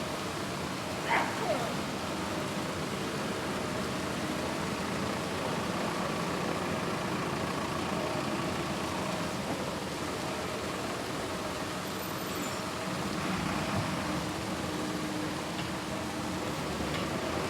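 Steady rain noise, even and unbroken, with a brief sharp sound about a second in.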